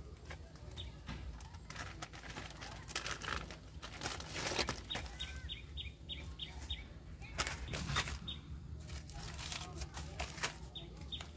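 A bird calling in quick runs of short, high, evenly spaced chirps, twice, over irregular rustling and knocks.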